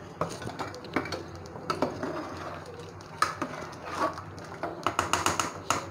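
Metal ladle stirring dal in an aluminium pressure-cooker pot and knocking against its rim: scattered clinks, then a quick run of taps near the end.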